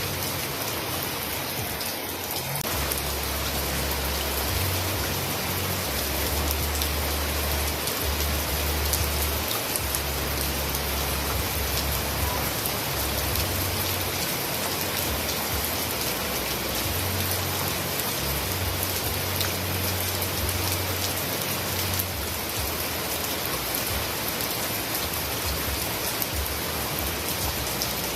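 Steady heavy rain: a dense, even hiss of many drops, with a low rumble that swells and fades underneath.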